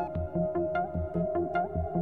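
Electronic music: held synthesizer tones over an even, repeating beat of low thumps and quick sharp clicks.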